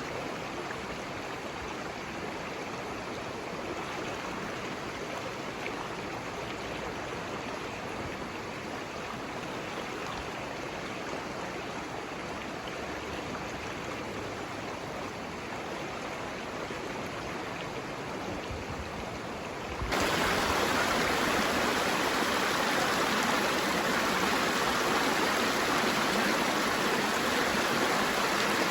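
Steady rush of flowing water, like a stream or small falls. About two-thirds of the way through it suddenly becomes louder and brighter, then holds steady again.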